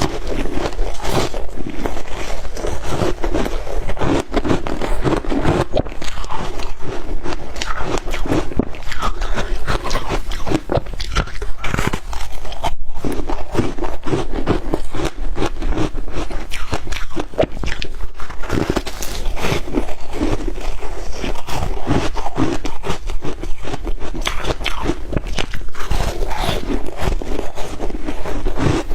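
A person biting and chewing shaved ice: a dense, continuous run of crunches.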